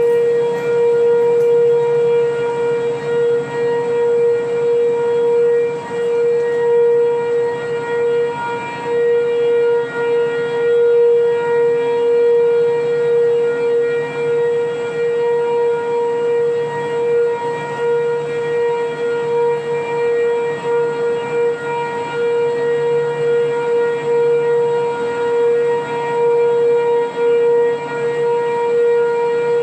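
Sentry 3V8-H outdoor warning sirens with all-8 port rotors sounding a steady alert signal: one unbroken, steady-pitched tone with overtones, swelling and dipping slightly in loudness. Several sirens across town sound together.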